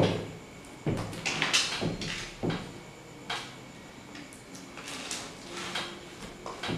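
Packing tape being picked at and cut open on a cardboard shipping box: a string of short scratching, tearing scrapes against the cardboard, the loudest a sharp knock at the very start.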